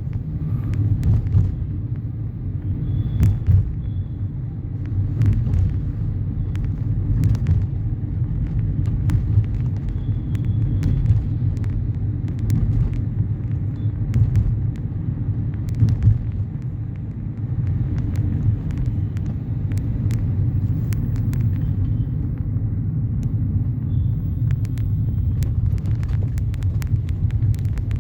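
Steady low rumble of a car travelling on the road, heard from inside the moving vehicle, with scattered light clicks and knocks.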